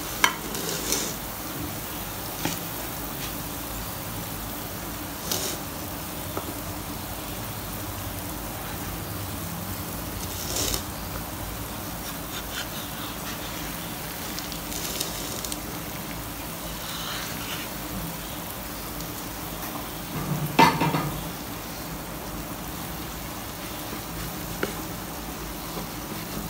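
Omelette sizzling steadily in a non-stick frying pan, with occasional scrapes and knocks of a wooden spatula cutting and lifting it, the loudest knock about twenty seconds in.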